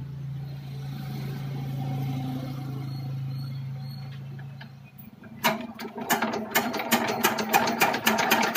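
Kirloskar Varsha single-cylinder air-cooled diesel engine being hand-cranked: a steady low hum as it spins for the first few seconds, then from about halfway a fast run of sharp knocks, several a second, as it turns over and fires. The engine will not start properly, which the mechanic puts down to a worn bore and piston.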